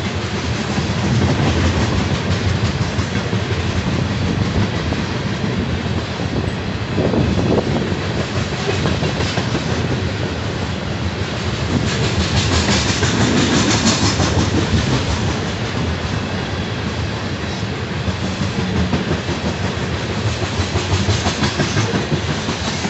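Freight train of oil tank cars rolling past, steel wheels clattering on the rails without pause. Around twelve seconds in, a hissier stretch grows louder for a couple of seconds.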